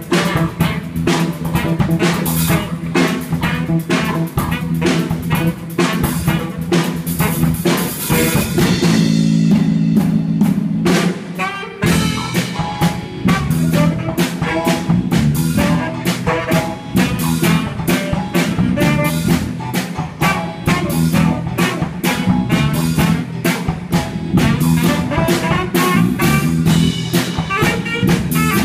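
Student jazz combo playing live: drum kit keeping a steady swing beat under saxophone and guitar. About nine seconds in, the drums drop back for about three seconds while the band holds a chord, then the beat comes back in.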